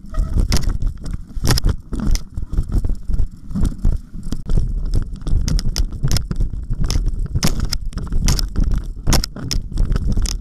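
Mountain bike rolling fast over a leaf-strewn forest singletrack: a constant low rumble with frequent, irregular sharp rattles and clacks as the bike jolts over roots and bumps.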